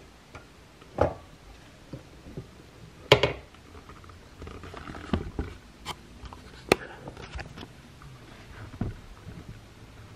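Handling clatter from a rotating Mickey Mouse waffle maker: a few sharp plastic clicks and clunks, the loudest about three seconds in, as its filled side is locked, the unit turned over and the other lid opened.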